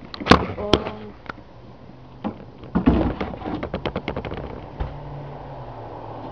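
Handling noise: a few sharp knocks, then a quick rattling run of clicks about three seconds in. A low steady hum comes in near the end.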